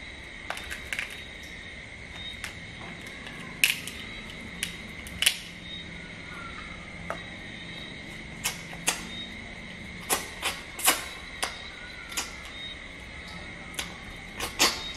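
Cooked crab shells cracking and crunching as they are pried apart by hand and chewed: irregular sharp snaps and clicks, about fifteen of them, over a steady faint high-pitched hum.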